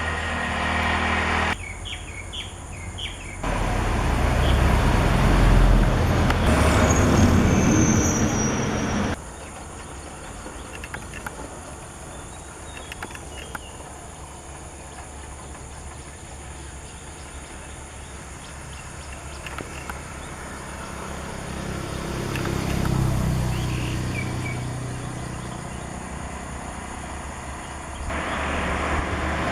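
Outdoor ambience with passing road traffic: a low rumble swells loudest between about four and nine seconds and again in the latter half, with a few short bird chirps. The background changes abruptly several times, as at cuts between recordings.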